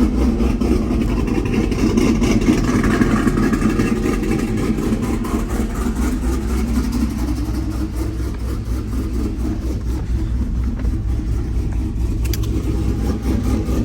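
GMC Sierra pickup truck driving, its engine and road noise running steadily.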